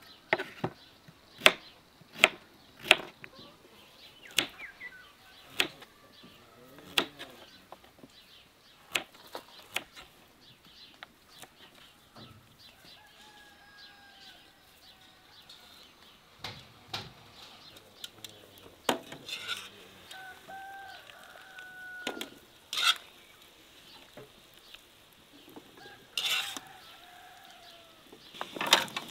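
Kitchen knife chopping potatoes on a wooden board: sharp knocks, about one every second, for the first ten seconds or so. Later a few faint drawn-out animal calls, and a few clinks of a metal skimmer against a wok.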